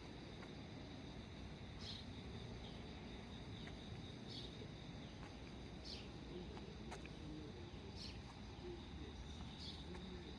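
Faint steady insect chorus, with a short high falling chirp about every two seconds.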